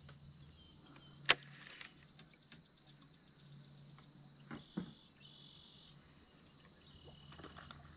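Steady high-pitched drone of insects. A single sharp click about a second in and two soft knocks near the middle stand out over it.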